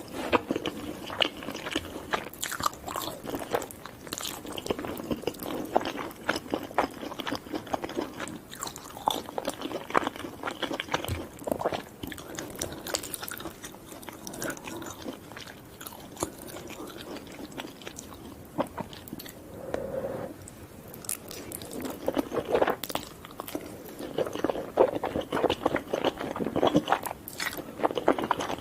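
Close-miked eating of crunchy fried fast food: irregular crunching bites and chewing, easing off for a few seconds midway and picking up again near the end.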